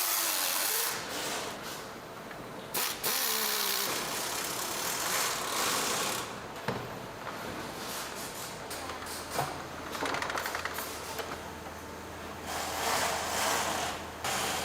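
Power tools running in short bursts, each start-up followed by a falling whine as the motor spins down, with a quick rattling stretch near the middle.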